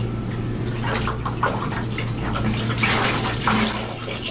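Water splashing and sloshing in a plastic bucket as a sheet of foam is pushed under and wrung out by hand, in irregular bursts that are loudest near the end.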